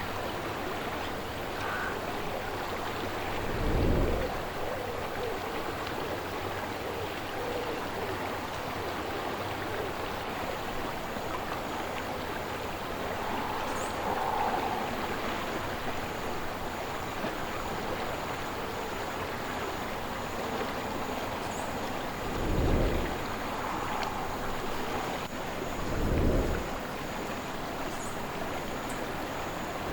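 Slow-moving river water flowing in a steady wash. Wind buffets the microphone in short low rumbles about four seconds in, twice near the end, and again at the close.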